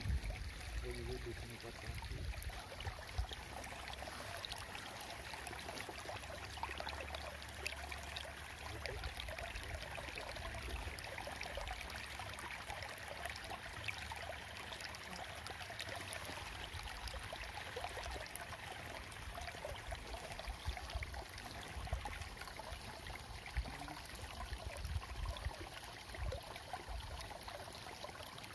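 Ditch water flowing and trickling steadily, over a low rumble.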